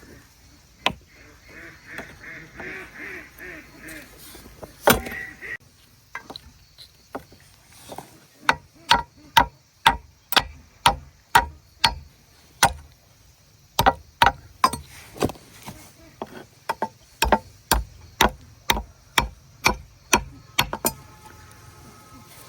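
Repeated sharp chopping strikes with a blade, about two a second, keeping up steadily over the second half. Early on, a few seconds of a high pitched call and a single knock come before the chopping begins.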